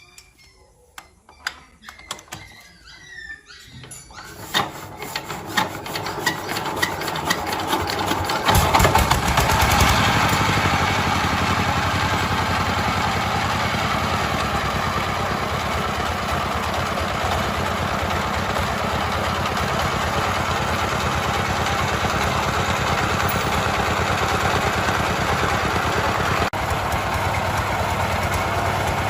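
A few clicks and knocks, then an engine starts up, picking up speed over several seconds until it is loudest about nine seconds in, and settles into steady running.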